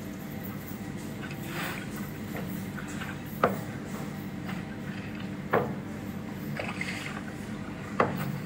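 Quorning Dragonfly trimaran's swing-wing connection banging three times, about two seconds apart, over a steady wash of water as the float rocks in small waves at anchor. The knocks come from play in the wing-to-float joint, where the nut is not tightened and the stack of washers leaves a gap.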